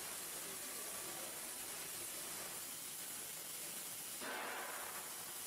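Steady, even background hiss, a little brighter from about four seconds in.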